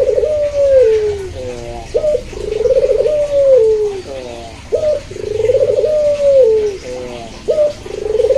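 Puter (Barbary dove) cooing in a repeating phrase, about three times: a few short stepped notes, a quick upward note, then a long rolling coo that slides down at the end.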